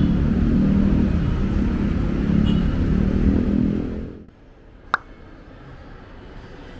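Road traffic, a steady low rumble of passing cars and motorbikes. About four seconds in it cuts off to a much quieter indoor hum, with a single sharp click soon after.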